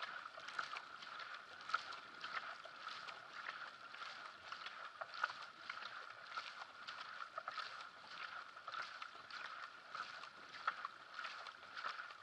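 Sprint racing kayak under hard paddling: blades splashing in and out of the water with each fast stroke over the steady rush of water along the hull, heard close up from the boat's deck.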